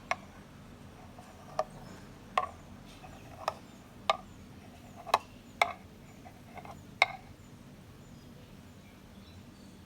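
About nine sharp clinks of hard objects knocking together, irregularly spaced over the first seven seconds, then only faint background.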